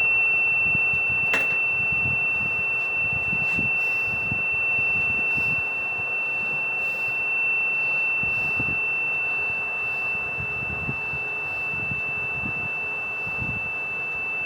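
A steady, high-pitched squeal sent over a CB radio channel and heard through the receiver with background hiss. It is one unbroken tone from an operator keying up and holding his transmitter open, with a single click about a second and a half in.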